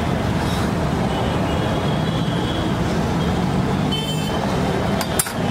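Steady street traffic noise, with a few sharp clicks about five seconds in.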